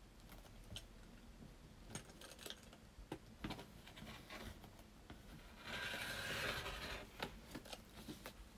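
Trimming denim quilt backing with a rotary cutter and clear acrylic quilting ruler on a cutting mat: light taps and clicks of the ruler being handled, then a scraping hiss lasting about a second and a half, a little under six seconds in.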